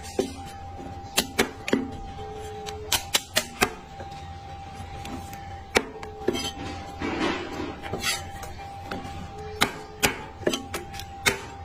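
Heavy cleaver chopping braised meat on a thick wooden chopping block: sharp, irregular chops, some in quick pairs. A scraping rustle comes about seven seconds in, over a faint steady tone.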